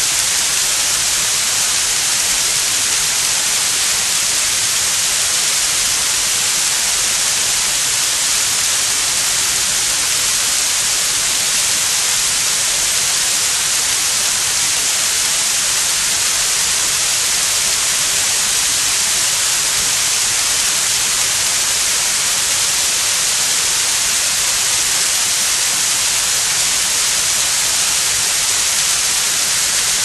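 Waterfall and stream water rushing over rocks: a steady, loud hiss, strongest in the high end, unchanging throughout.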